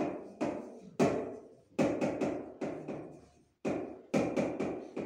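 Writing on a board: a series of about ten sharp taps and knocks in an uneven rhythm, each with a short ringing tail.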